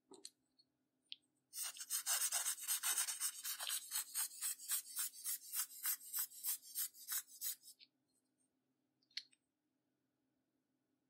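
A run of quick, scratchy scraping strokes, about three a second, for some six seconds, like a hard tool rasping back and forth on a hard surface; a couple of single small clicks come before and after.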